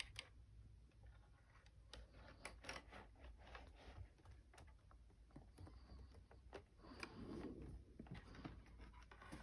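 Near silence with faint handling noise: scattered soft clicks and a brief rustle as the clock or the recording device is moved and turned.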